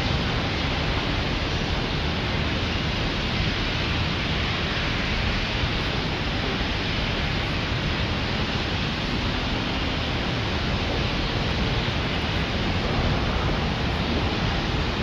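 Steady, even rushing noise of wind blowing over the microphone.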